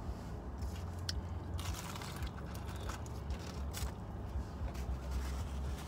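Someone chewing and crunching fried food, with a few small clicks and crackles, over a low steady hum.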